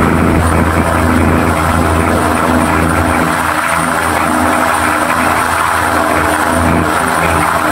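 A diesel passenger train in motion, heard from a carriage window: a steady low engine drone under a continuous rushing noise of wheels and air.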